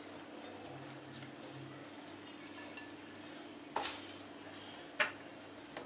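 Light clinks and taps of glass bowls and dishes being handled on a kitchen counter as sliced peppers are emptied into a glass salad bowl. Two sharper knocks come a little past halfway and near the end, over a faint steady hum.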